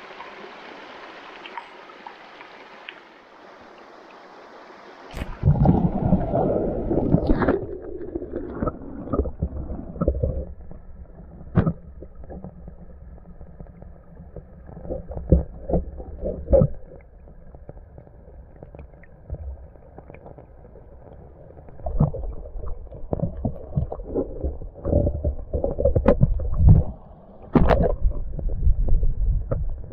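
Shallow stream running over stones, heard in open air as a steady hiss. About five seconds in the sound abruptly turns muffled and deep as the microphone goes under the water: underwater rushing and gurgling with surging rumbles and scattered sharp knocks.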